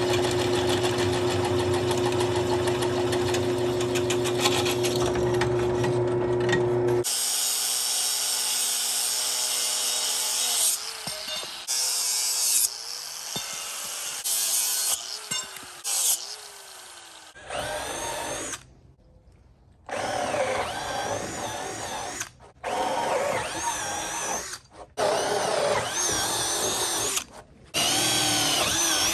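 Power tool work: a machine runs steadily with a held hum for the first several seconds, then a power drill runs in a series of short bursts, its pitch rising as it spins up each time.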